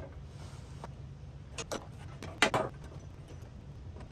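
A few short knocks and clicks of metal parts as a miter saw's loosened fence is pivoted and a combination square is set against the blade, the loudest about two and a half seconds in, over a steady low hum.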